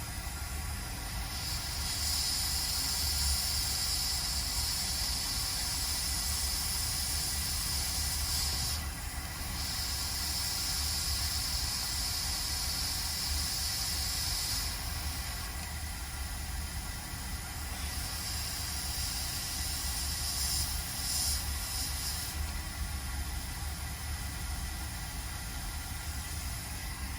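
Air hissing in three stretches of several seconds each, breaking off between them, over a steady low hum.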